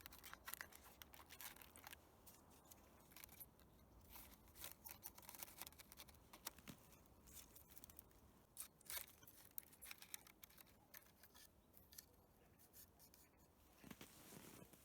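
Near silence with faint, irregular crackles and ticks: a Swedish fire log, a log split in four and lit from the middle, starting to catch.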